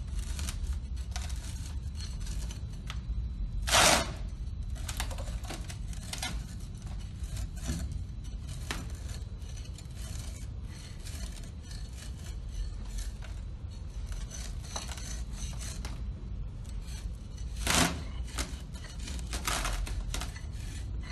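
Straightedge scraping across the rim of a metal Proctor mold, shaving excess compacted soil off the top in repeated short strokes. Two strokes are louder, about four seconds in and again about three seconds before the end.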